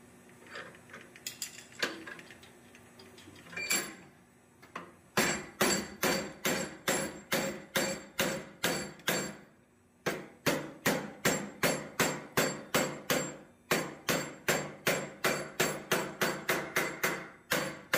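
Hammer blows on a hot steel block clamped in a vise, about three sharp ringing strikes a second, steady, with a short break about ten seconds in and coming slightly faster near the end. The hammering is preceded by a few lighter scattered knocks and clinks in the first five seconds.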